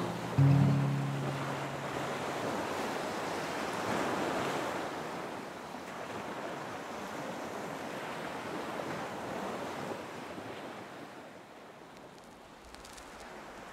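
Ocean surf washing onto a beach, with wind, swelling and easing and slowly fading away toward the end.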